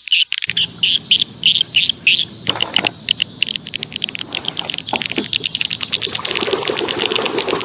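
Birds chirping in quick repeated high notes that become a fast, dense twittering a couple of seconds in, over a steady hiss that starts about half a second in.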